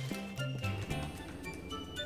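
Background music with a moving bass line and short melodic notes.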